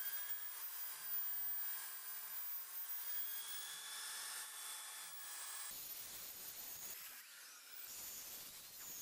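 Electric drill spinning a 75 mm sponge polishing buff against painted sheet metal, a steady high-pitched motor whine. About six seconds in the whine drops a little and turns rougher.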